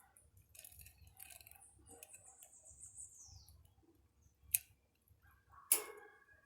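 A small pet playing with a stick it has gnawed: light rustling and tapping, a high thin squeak sliding down in pitch, then two sharp clicks near the end, the second the loudest.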